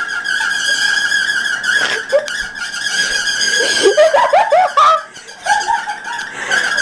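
Broken electric fan making a steady high-pitched whine with a fast flutter. About halfway through, a person's giggling laughter comes in over it.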